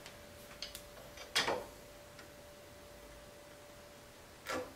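A handful of sharp metal clicks and knocks from hand tools worked against the steel of a forklift tilt cylinder mount, the loudest about a second and a half in and another near the end.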